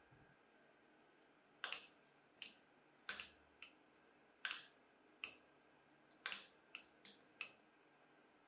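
Sharp clicks as a hobby knife blade pries copper staples one by one off a staple strip, about ten clicks spread irregularly over several seconds, some in quick pairs.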